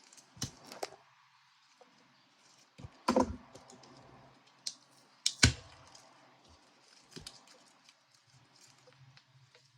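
Scattered sharp clicks and knocks of small hand tools and plastic parts being handled as a lithium battery pack's BMS board is cut free from its cells; the two loudest come about three seconds and five and a half seconds in.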